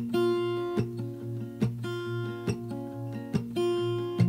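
Background music: acoustic guitar strumming sustained chords in a steady rhythm, about one strum every second.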